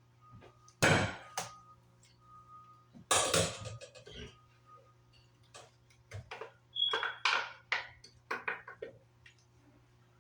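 Kitchen clatter: dishes, utensils and containers being handled, a series of separate knocks and clinks, the loudest about a second in and again about three seconds in.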